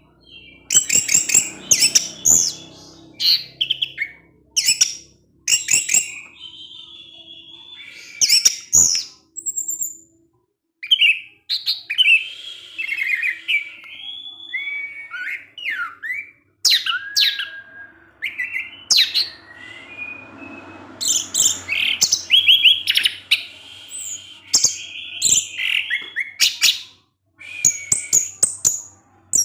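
Orange-headed thrush singing in bursts of rapid, varied chirps and warbled phrases, with short pauses between bursts. This is the excited 'ngecip ngecis' style of song that keepers play to prompt a quiet thrush to sing.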